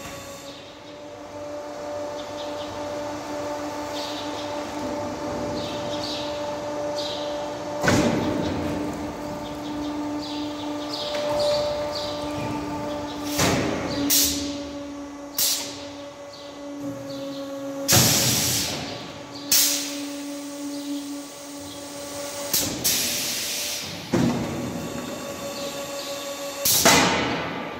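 Automatic silage bagging machine working through a packing cycle: a steady motor hum with about ten sharp bursts of air hiss and clunks from its pneumatic actions, a few of the hisses lasting up to a second.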